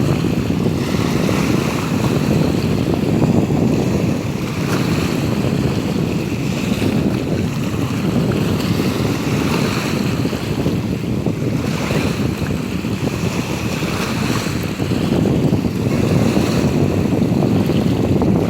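Wind buffeting the microphone over the wash of sea surf, a steady loud rush that swells and eases slowly, rising again near the end.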